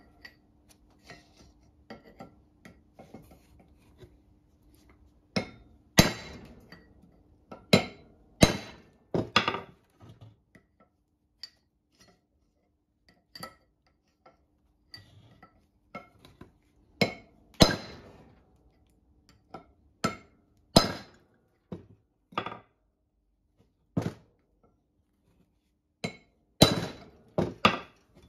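Sharp metallic clinks and strikes of steel hand tools on an axle bearing's locking ring, irregular and in clusters, the loudest ringing briefly, with quieter tool clicks between. This is the work of getting the locking ring off in a way that lets it be used again.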